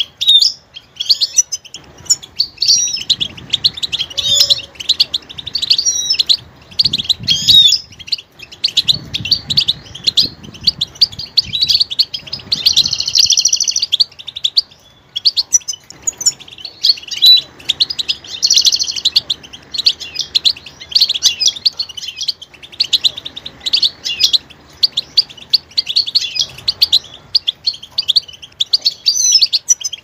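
European goldfinch singing: a long, fast run of high twittering chirps, trills and buzzy notes, with a short pause about halfway through.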